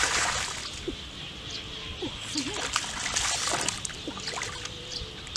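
Feet splashing through a shallow, muddy puddle, loudest at the start, then smaller splashes and trickling as hands grab about in the water for a fish.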